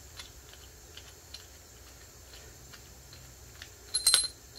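Faint, irregular metal ticks as a steel anchor-setting bolt is unscrewed by hand from a freshly set concrete anchor, then a short burst of sharp, ringing metallic clinks about four seconds in as the tool comes free.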